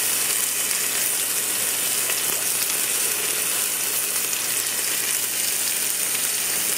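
Thick pork chops sizzling in butter in an Instant Pot's stainless steel inner pot on the sauté setting: a steady frying hiss with fine crackling.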